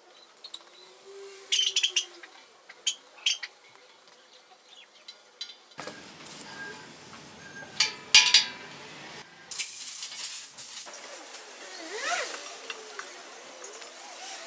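Sharp metal clinks and knocks from steel grill parts being handled with a tool: a few clinks in the first seconds and louder clanks about eight seconds in.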